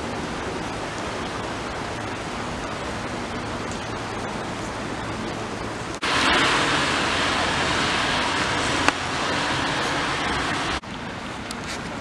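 Steady outdoor street ambience, an even hiss of background noise. About halfway through it turns abruptly louder and brighter for a few seconds, with one click, then drops back just as suddenly.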